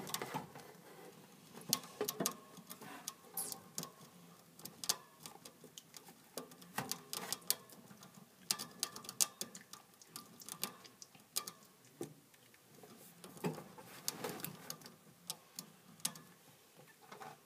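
Pet hamster crunching and gnawing its food: irregular sharp clicks and crackles, several a second.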